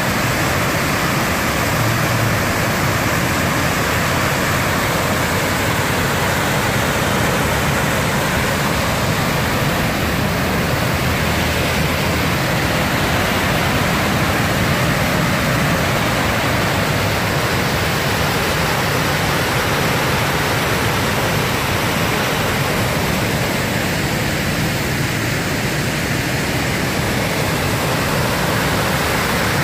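Steady, loud rush of a waterfall running high after heavy rain, the full, muddy flow pouring into its plunge pool and churning through rapids below; an even noise that does not change.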